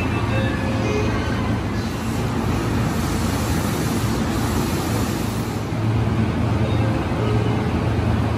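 Electric commuter trains (JR East E233 series) humming in an underground station, with a steady low hum and rumble. A brighter hiss comes in for a few seconds in the middle.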